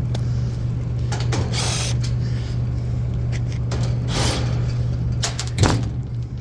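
A steady low hum with scattered clicks, scrapes and knocks of hands working at a metal equipment cabinet; the loudest knock comes near the end.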